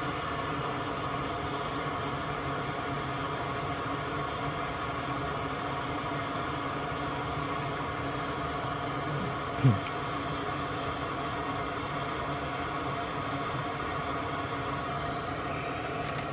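Steady hum and hiss of a small running fan, with several held tones. A short falling sound stands out once, a little under ten seconds in.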